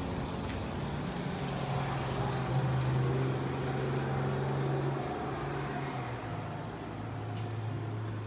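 A motor vehicle passing close by: a steady engine drone over tyre rush, building over the first few seconds and dropping in pitch about six seconds in.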